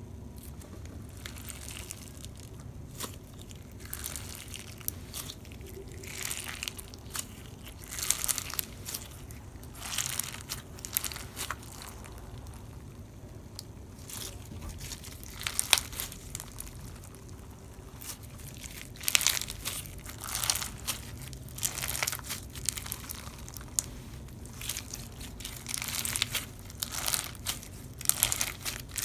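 Slime being squished and pressed by hand, giving crinkly, crackling sounds in irregular bursts of short strokes, with louder clusters in the middle and toward the end.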